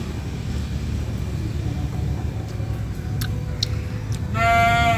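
Steady low rumble with a few faint clicks of chewing. Near the end comes a short call held on one high pitch.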